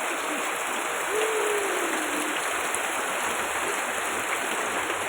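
Heavy rain pouring steadily, an even hiss of rain and running water.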